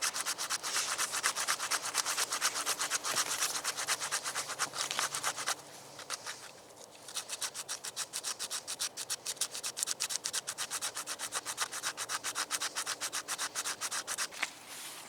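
Rapid back-and-forth scraping strokes on wood, about six a second, as in hand sawing or rasping. They pause for about a second and a half around the middle, then go on again more lightly.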